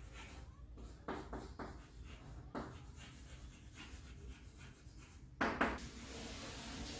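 Writing by hand: a series of short strokes, with a louder, longer stroke about five and a half seconds in.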